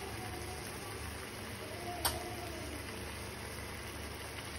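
A steady low hum, with a single sharp tap of a spoon against the frying pan about two seconds in while spices are spooned into the puree.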